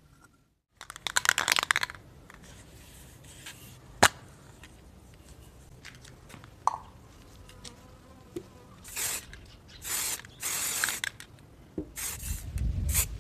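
Aerosol spray-paint can hissing in several short bursts as a PVC pipe lamp body is sprayed, with a single sharp click about four seconds in and low rumbling handling noise near the end.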